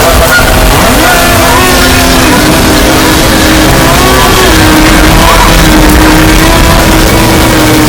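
Harsh noise music: a very loud, unbroken wall of distorted noise with wavering, slowly bending tones running through it.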